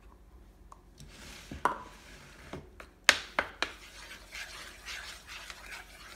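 A few sharp knocks, the loudest about three seconds in, then a metal spoon stirring egg and coconut milk into flour in a plastic mixing bowl, a quick scratchy scraping rhythm.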